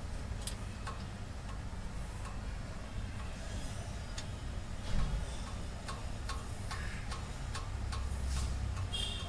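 Light, regular mechanical ticking, about three clicks a second in the second half and more scattered before that, over a low steady hum, with one dull thump about five seconds in.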